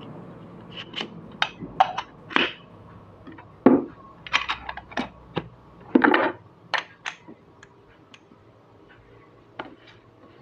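Stainless steel hand coffee grinder being handled on a counter: a run of sharp metal clicks and knocks, with two heavier knocks about 4 and 6 seconds in. Fewer, fainter taps follow near the end.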